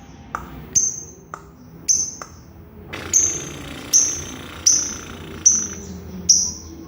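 Lovebird calling with a string of short, sharp, high-pitched chirps, about eight of them, each starting with a click and coming roughly every second or less.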